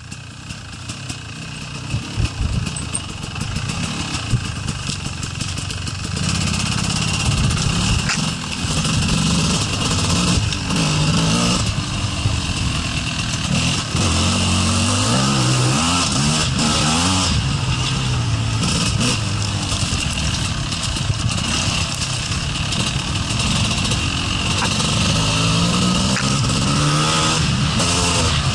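Gas Gas 250 EC two-stroke enduro motorcycle being ridden on a rough trail, its engine revving up and down with the throttle. Quieter for the first few seconds, it builds and stays loud from about six seconds in, the pitch rising and falling repeatedly.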